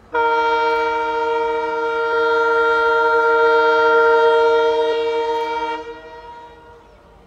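Locomotive horn of an approaching train sounding one long, loud blast of about six seconds. It cuts off suddenly near the end.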